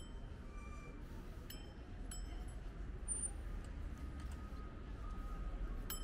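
Faint outdoor city ambience: a steady low rumble with a few sharp high clicks and short faint chirps scattered through it.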